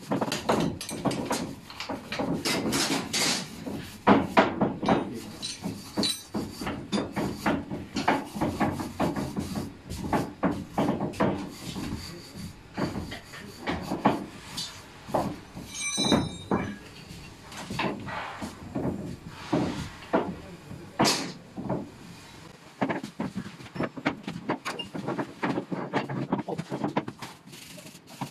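Irregular metal clanks, knocks and scrapes of hand tools and parts against a Mercedes-Benz Actros truck gearbox casing as it is worked on by hand.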